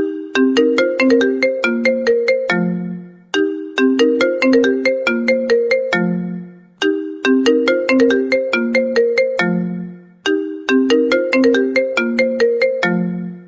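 iPhone ringtone playing: a quick melody of short, struck, pitched notes that loops about every three and a half seconds, about four times here, each pass ending on a lower, longer note.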